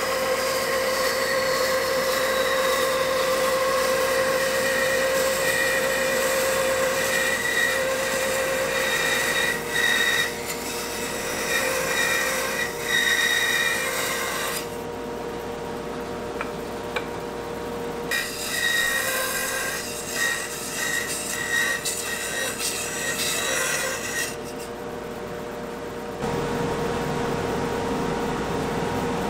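Bandsaw running with a steady whine while its blade saws the curved outline of a wooden chopping board, a rasping hiss over the motor. The cutting noise drops out twice for a few seconds while the saw keeps running.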